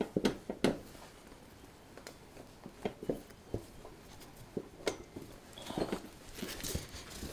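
Scattered light clicks and knocks of metal parts being handled, with a short stretch of scraping about six seconds in.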